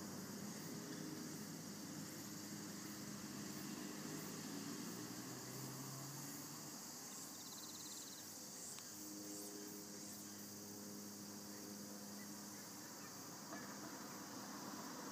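Faint outdoor background: a steady hiss with a low hum that comes and goes, and a short high trill about seven seconds in.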